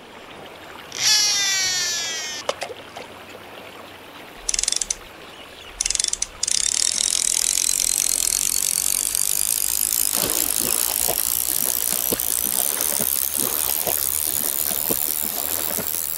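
Title-sequence sound effects: a loud falling swoosh about a second in, a sharp click, two short bursts of noise, then a steady high whirring hiss from about six and a half seconds on.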